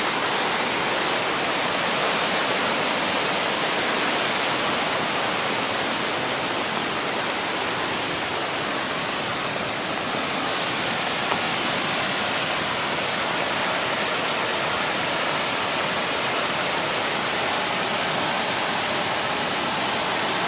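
Mountain valley stream running steadily: a dense, even rush of water with no breaks.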